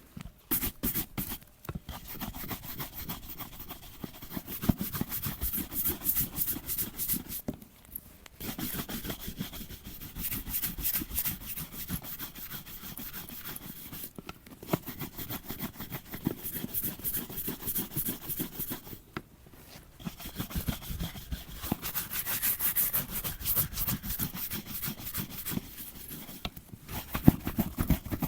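Rapid rubbing strokes on a leather boot, in runs of several seconds broken by short pauses.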